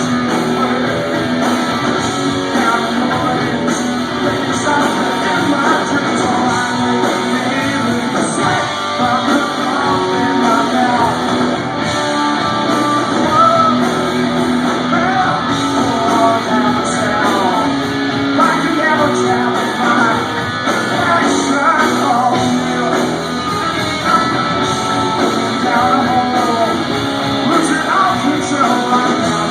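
Live rock performance: a band playing loud electric guitar while a man sings.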